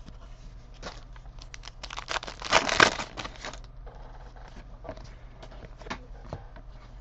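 Trading cards and their packaging being handled: a crinkling, rustling burst about two seconds in that lasts over a second, with scattered light clicks and taps before and after it.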